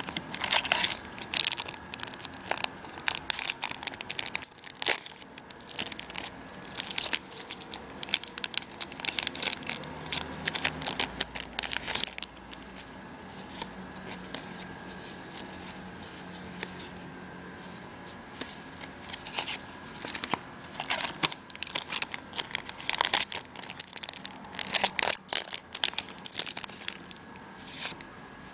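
Foil trading-card booster pack wrappers crinkling and being torn open, in bursts of rustling, with a calmer stretch in the middle.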